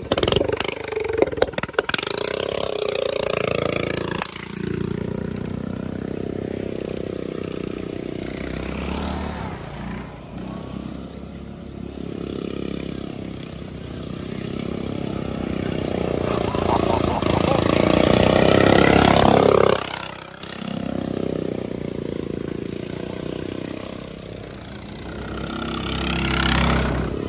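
Riding lawn mower engines running and revving as racing mowers lap a dirt track, swelling and fading as they pass. There are a few sharp knocks in the first couple of seconds, and the loudest pass comes about two-thirds of the way in before dropping off sharply.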